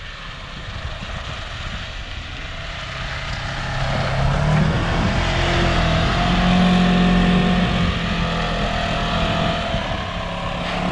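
Polaris Ranger Northstar side-by-side on rubber snow tracks driving through snow with its engine running in a steady drone. The drone grows louder about four seconds in as the machine comes close, then eases off a little as it moves away.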